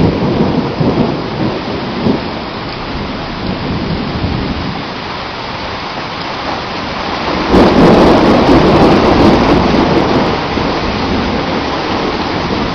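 Heavy rain pouring steadily in a thunderstorm. Rumble from an earlier thunderclap fades at the start, and about halfway through a loud thunderclap cracks and rumbles for a couple of seconds before dying back into the rain.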